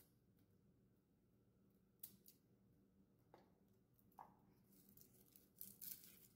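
Faint crackle and rustle of dry, papery garlic skins being peeled off cloves by hand: a few short crackles, with a small cluster near the end.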